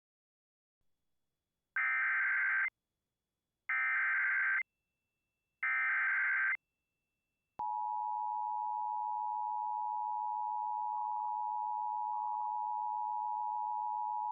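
Emergency Alert System broadcast tones: three short bursts of the SAME digital header, each lasting about a second, then, about halfway in, the steady two-tone EAS attention signal at 853 and 960 Hz, which holds on without a break. Together they signal the start of a National Weather Service severe thunderstorm warning.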